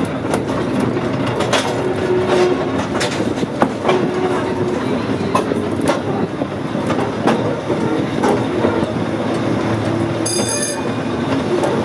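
Volk's Electric Railway car running along the track, heard from on board: a steady rumble from the small electric car with repeated clicks of the wheels over the rail joints, and a brief high squeal near the end.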